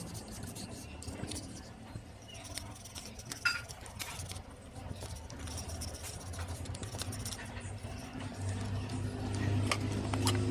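Scattered light clicks and clinks of small metal hub parts being handled, with a short squeak a few seconds in. A low steady hum comes up over the last couple of seconds.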